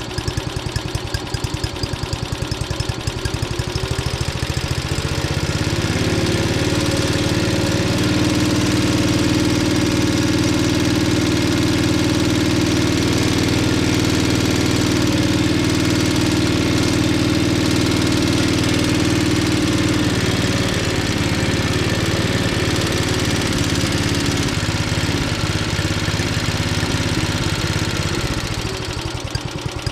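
Suzuki engine of an old Toro lawn mower running while its carburetor idle and air-fuel mixture screws are adjusted by hand. It idles, picks up speed about five seconds in, holds there, then steps back down after about twenty seconds and falls off near the end.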